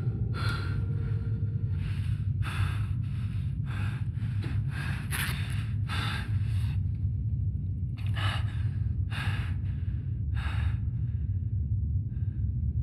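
A man panting hard and fast, short noisy breaths about two a second. They break off for a moment, then a few more gasps follow and stop near the end. A steady low rumble runs underneath.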